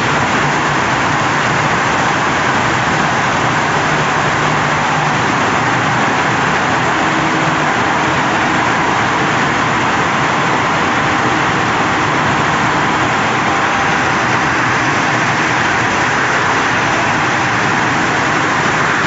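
Horizontal glass washing machine running with a steady, even noise and a faint low hum.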